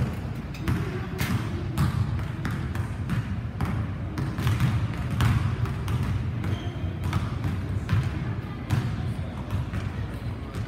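Basketballs bouncing on a hardwood gym floor, with irregular sharp thuds over a steady low hum.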